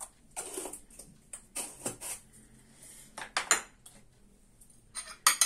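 Kitchen clatter from a small salt jar and its plastic lid being handled, closed and set down on a stone countertop: a scattered series of short knocks and clinks, the loudest near the end.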